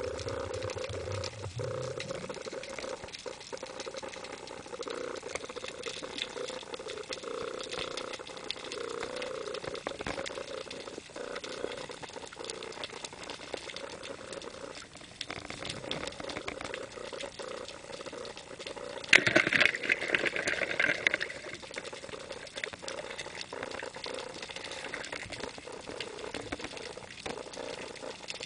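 Underwater noise recorded inside a camera housing: steady crackling and bubbling water sound, with a louder rushing burst lasting about two seconds roughly two-thirds of the way through.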